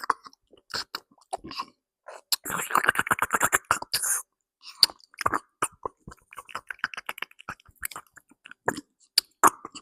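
A person chewing food close to the microphone: wet mouth clicks and smacks, with a denser run of rapid chewing sounds in the middle.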